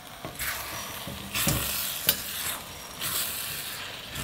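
A ladle stirring chunks of brinjal and curd in an earthenware cooking pot: about three wet, scraping strokes, with one sharp knock of the ladle against the pot about two seconds in.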